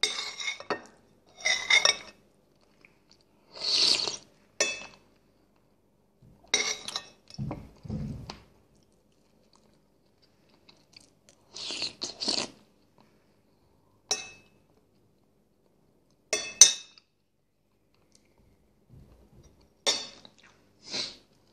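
Close-up eating sounds: a man chewing chicken and potatoes in broth, in separate short mouthfuls with pauses, and cutlery clinking against a bowl. A dull low bump about eight seconds in.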